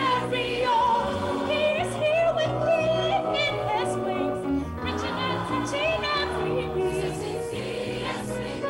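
Choir singing a gospel song, a lead singer's voice on a microphone over the choir, with the words "Breaking every yoke" and "He is here with healing in His wings".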